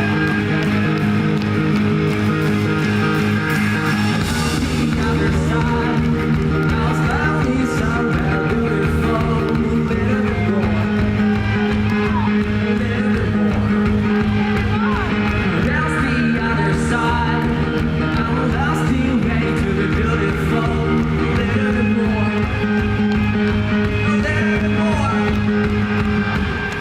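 Rock band playing live: electric guitar at first, with bass and drums coming in about four seconds in, then a male lead voice singing over the band.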